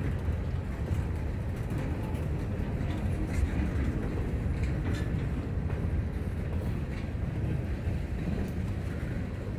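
Freight train cars, boxcars and then tank cars, rolling past on the track: a steady low rumble of steel wheels on rail, with a few faint clicks.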